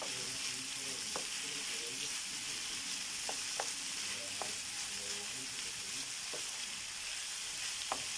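Sliced red and orange bell peppers and onion sizzling as they fry in a skillet, stirred with a spoon that taps against the pan about six times.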